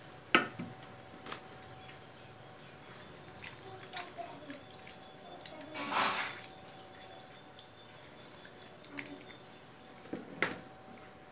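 Hands squeezing and mixing raw chicken pieces in a spice-paste marinade in a steel bowl: wet squelching with scattered sharp clicks. A sharp click comes just after the start and a longer, louder squelch about halfway through.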